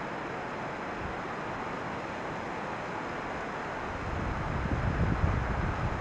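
Steady outdoor noise with no distinct event; from about four seconds in, wind starts buffeting the microphone in uneven low rumbles that grow louder.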